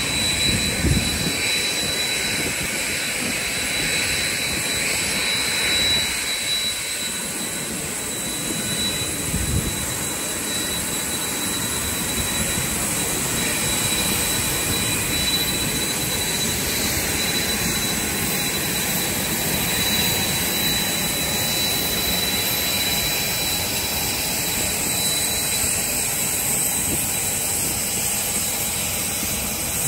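Jet aircraft on the apron: a steady rushing hiss with a thin high-pitched whine held throughout, from a Boeing 737-800 standing at the gate. Two brief low bumps break in, about a second in and again near ten seconds.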